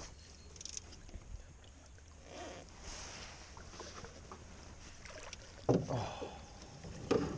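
Handling noise in a small aluminium boat as a bass is landed in a net: rustling and light knocks, with two louder bumps near the end.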